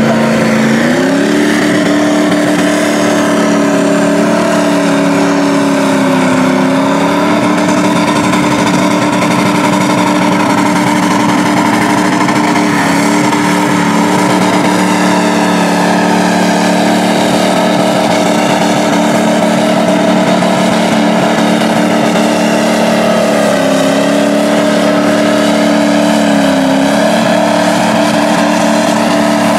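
Lifted Ford pickup mud truck's engine held at high revs as it churns through deep mud. The pitch climbs in the first couple of seconds, then holds steady with a few brief dips.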